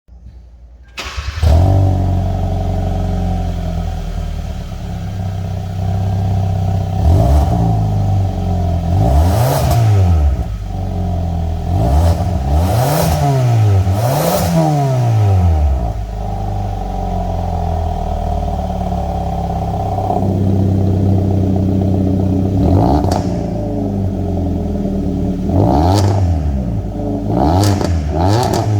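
Kia Pride 1.6 GDI four-cylinder engine running through an aftermarket Maintec variable-valve exhaust, idling steadily and being revved in short blips several times, the pitch rising and falling with each one.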